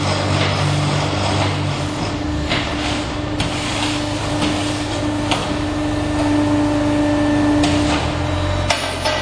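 Concrete pipe making machine running: a steady mechanical hum with a held tone, broken by several sharp knocks.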